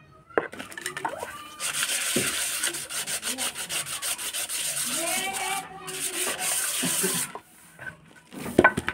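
Sandpaper rubbed by hand over a carved wooden panel, quick back-and-forth strokes starting about two seconds in and lasting about five seconds. A few sharp knocks near the end.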